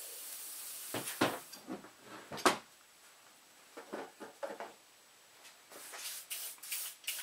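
WD-40 aerosol can spraying in a hiss for about a second, followed by several sharp knocks and clicks of metal gun parts and tools being handled and set down on a bench.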